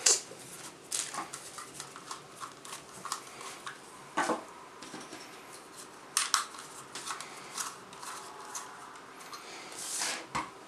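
Sharp plastic clicks and taps of a Zoom H2 handheld recorder being handled: its foam windscreen pulled off and the recorder fitted into its small plastic tabletop stand. A brushing rustle comes near the end.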